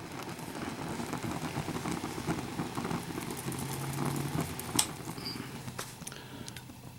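An electric fan blowing steadily with a low hum and a fine, rapid fluttering noise, its air stream playing on a lit Zippo windproof lighter held about a foot away that stays alight. A single sharp click about five seconds in.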